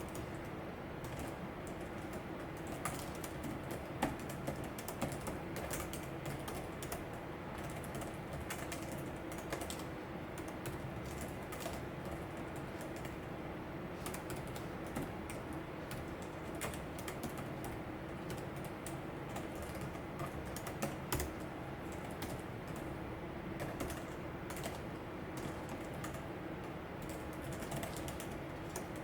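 Continuous typing on a Logitech ERGO K860 split ergonomic keyboard: a steady run of relatively quiet key clicks from its shallow-stroke keys, with a few louder keystrokes now and then.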